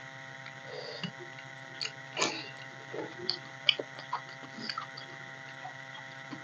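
Mouth sounds of a person eating soft mashed rice by hand: chewing with a few short smacks and clicks, one sharper click a little past the middle. A low steady hum runs underneath.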